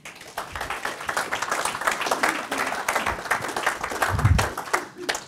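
Audience applauding at the end of a talk, starting suddenly and dying away after about five seconds. A brief low thump about four seconds in.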